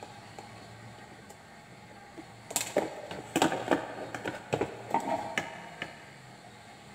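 Handling noise from the opened radio's circuit board and parts on a workbench: a cluster of irregular clicks, taps and light rattles after a quiet start, easing off near the end.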